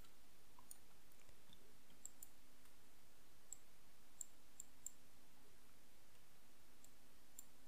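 Faint computer mouse clicks: scattered single clicks about two seconds in, several more around the middle, and a quick run near the end, over a low steady hum.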